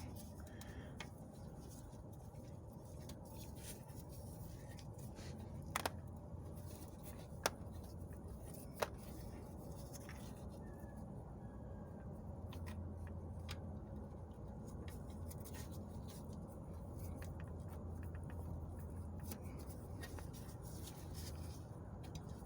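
Quiet, small metallic clicks and handling noises as the oil cooler's centre bolt is worked onto its threads by hand, with three sharper clicks about six, seven and a half and nine seconds in, over a faint steady low hum.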